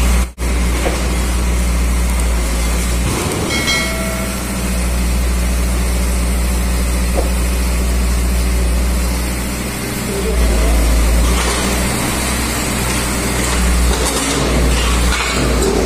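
KAMAZ diesel truck engine running steadily to power its hydraulic scrap-handling crane. A short ringing tone sounds about four seconds in.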